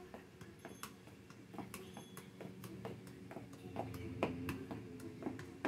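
A soccer ball being juggled: quick taps as it bounces off feet and thighs, about three a second, the hardest touch about four seconds in, over a faint steady hum.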